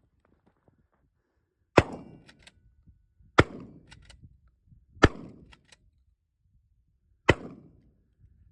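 Stevens 620A pump-action shotgun fired four times, about two seconds apart, with light clicks of the action between shots.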